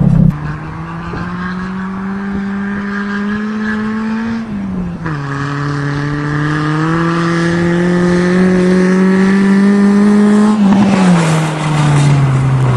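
Nissan 200SX engine under acceleration. Its note climbs steadily through a gear, falls as it shifts up about four and a half seconds in, climbs again, and falls once more near the end.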